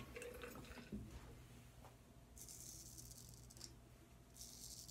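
W.H. Morley & Sons straight razor scraping through lathered stubble: faint, crisp strokes, one lasting about a second starting about two and a half seconds in, and another near the end.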